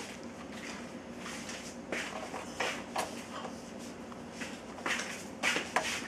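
Light clicks and rattles of a dishwasher's wire rack and the plates in it being handled, several scattered knocks.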